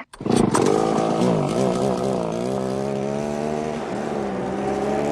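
Chainsaw engine starting up suddenly and running loud, its pitch wavering down and back up in the first couple of seconds, then holding steady.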